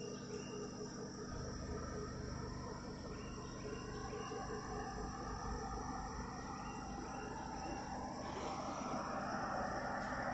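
Insects chirping in a steady, pulsing rhythm. A vehicle approaches over the last couple of seconds, growing steadily louder.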